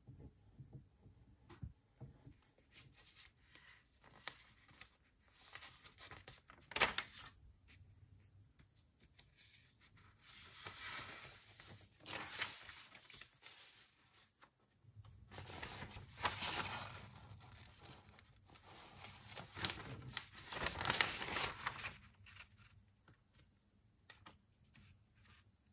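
Paper being handled and rustled, in three stretches of a second or more each, after a few light taps and one sharper tap about seven seconds in.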